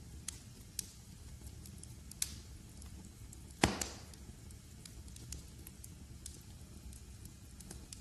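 Wood fire crackling in a fireplace: scattered sharp pops and snaps over a low steady rumble, with one louder crack a little past halfway through.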